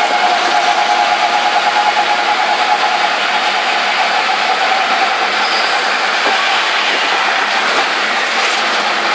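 Auto-rickshaw's small engine running as it drives along a highway, heard from inside the open cab together with road and wind noise. For the first few seconds the engine note pulses in a quick, even beat, then it settles into a steadier rush.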